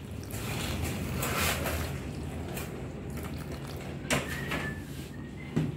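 Pancake batter being mixed by hand in a glass bowl: liquid poured onto flour and a plastic spoon scraping through it. Two sharp clicks of the spoon against the glass, about four seconds in and again near the end, over a low steady hum.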